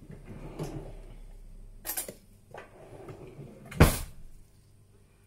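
Kitchen handling sounds: a short rustle, then two sharp knocks about two seconds apart, the second the loudest, as things are picked up and set down or a cupboard is shut.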